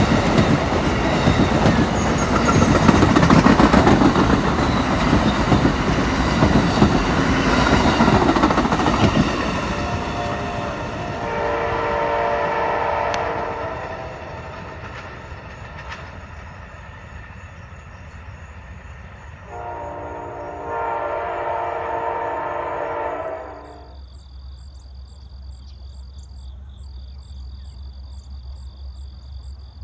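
Amtrak passenger train passing close by, its wheels clattering over the rail joints, loud for the first several seconds and then fading as it draws away. Its locomotive horn then sounds two blasts of several notes at once from a distance, the second about four seconds long. Near the end there are high pulsing chirps over a low hum.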